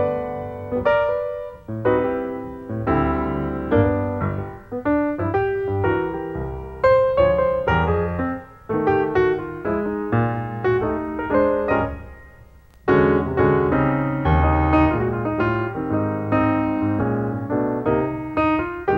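Piano music: quick runs of struck notes and chords. It dies away about twelve seconds in and comes back strongly a second later.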